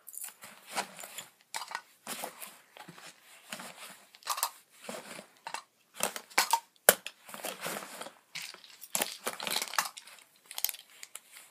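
Fabric backpack rustling and crinkling as gear is pushed back into it by hand, with irregular scrapes and knocks and one sharp click about seven seconds in.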